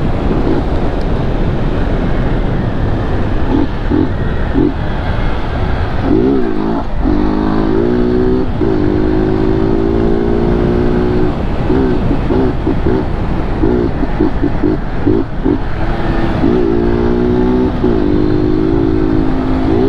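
BMW G 310 GS single-cylinder engine running through a modified inverted-hose exhaust while riding, the engine note swinging up and down in short rev blips and holding steady for a few seconds at a time, over heavy wind and road noise.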